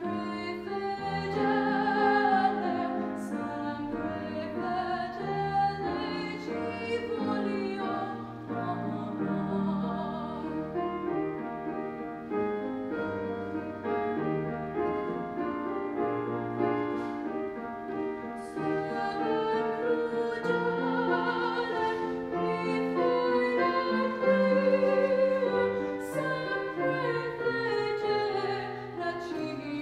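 Soprano singing classical art song or aria with grand piano accompaniment, her voice held on long notes with vibrato.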